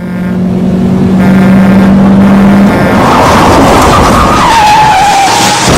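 A loud, steady low hum that stops a little under three seconds in, followed by a loud screech whose pitch wavers and then drops near the end.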